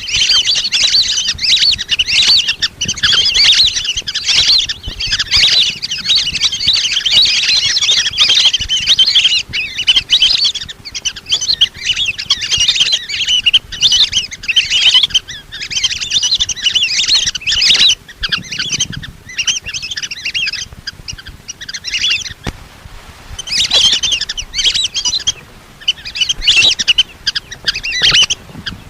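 A flock of lesser whistling ducks giving shrill, overlapping whistled calls, used as a lure call to draw the birds in. There is a short lull about 22 seconds in, then the calling picks up again in bursts.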